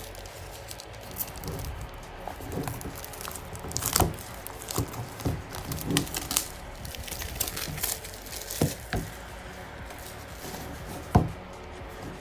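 Packaging handled during unboxing: crinkling and rustling with scattered irregular taps and knocks, a sharper knock near the end.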